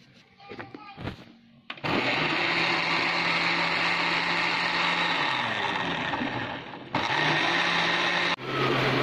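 Electric blender grinding fresh coriander and mint leaves into green chutney. A few knocks, then the motor starts about two seconds in and runs loudly; its hum sags about midway, jumps back up near the end, and cuts out and back in once just after.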